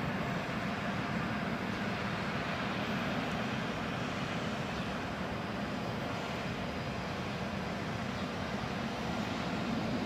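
Distant, steady rumble of the Antonov An-124-100's four Progress D-18T turbofan engines running on the runway at the start of its take-off.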